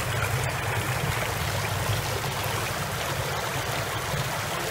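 Steady splashing rush of fountain jets spraying into a shallow splash pool, over a low steady hum.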